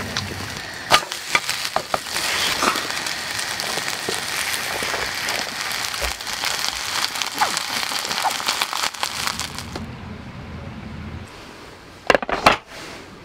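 Korean chive pancake frying in oil in a pan, a steady crackling sizzle with many small pops and spatula scrapes. The sizzle gives way about ten seconds in, and a few light knocks follow near the end.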